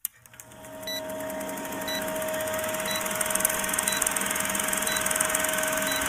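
Film-countdown sound effect: a film projector running with a steady rattling whir, and a short blip about once a second as the leader counts down.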